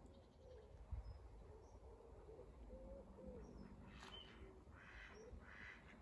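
Faint calls of mallard ducks on a pool: a run of low, wavering notes in the first few seconds, then rough quacks about five seconds in.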